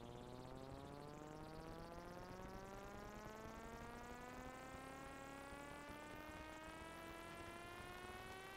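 A faint, sustained electronic synthesizer tone gliding slowly and steadily upward in pitch, then cutting off suddenly near the end.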